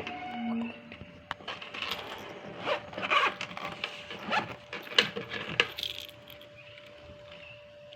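A pouch being handled: a run of light clicks and rustles, loudest around three and five seconds in, dying down after about six seconds.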